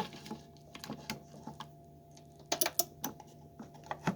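Scattered small clicks and taps of hands handling a plastic wiring connector and plugging it into a radio receiver, with a quick cluster of clicks about two and a half seconds in, over a faint steady hum.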